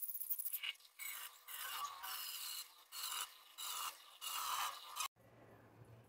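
A hand rubbing and swishing soaked green mung beans in water in a glass bowl, in short irregular bursts, washing off their green husks.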